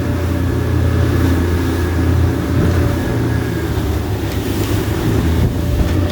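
Steady low drone of a boat's engine running, with a constant rushing hiss over it.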